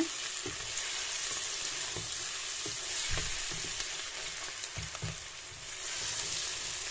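Sliced onions with ground garlic and ginger sizzling steadily in hot oil in a stainless steel pot, with a wooden spoon stirring them and now and then knocking softly against the pot.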